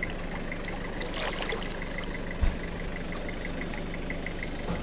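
A vehicle engine idling steadily, with a faint regular ticking about five times a second and a single low thump about two and a half seconds in.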